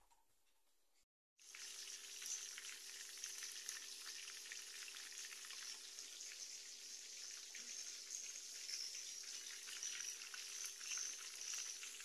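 Food frying in hot oil in a pan on the stove: a steady crackling sizzle. It starts abruptly about a second and a half in, with a faint steady hum underneath.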